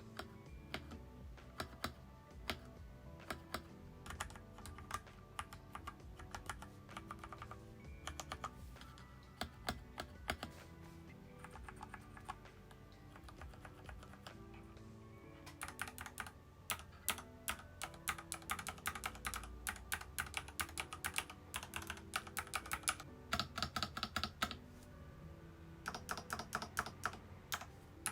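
Typing on a Varmilo Minilo mechanical keyboard with Cherry MX Speed Silver linear switches. Scattered keystrokes at first, then fast runs of typing from a little past halfway, over soft background music.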